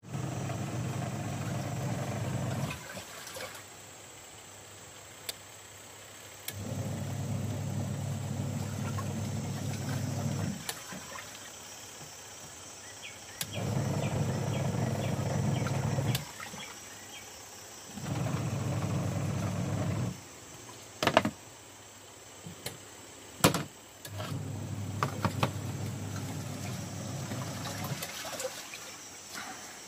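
Pensonic twin-tub washing machine in its wash cycle: the wash motor hums for three to four seconds, pauses for a few seconds, then runs again, over and over, as the pulsator alternates direction. A few sharp clicks come during one of the pauses.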